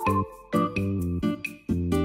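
Background music: an upbeat tune with short pitched melody notes over a repeating bass line.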